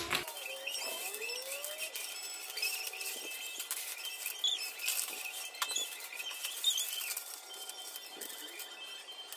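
A tangled string of fairy lights with plastic snowflake ornaments being pulled apart by hand: thin wire and plastic pieces rustling and clicking against each other.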